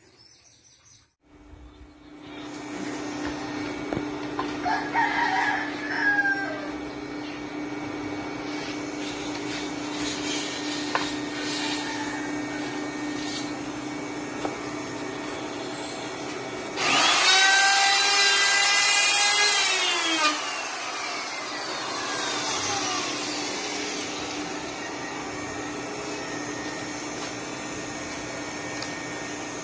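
A hand-held power tool runs steadily with a hum throughout. A rooster crows loudly for about three seconds starting some seventeen seconds in, its call falling at the end, and a fainter, shorter crow comes about five seconds in.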